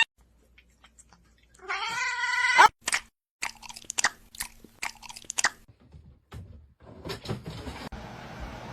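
A cat gives one long, wavering meow about two seconds in, followed by a series of light clicks and knocks.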